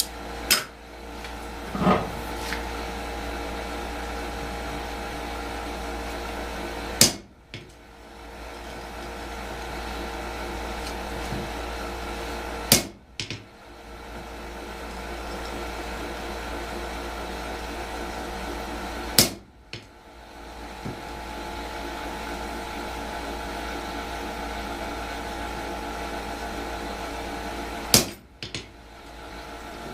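A steady machine hum holding several fixed tones, broken by about six sharp knocks spaced several seconds apart. After each of the later knocks the hum dips briefly before it returns.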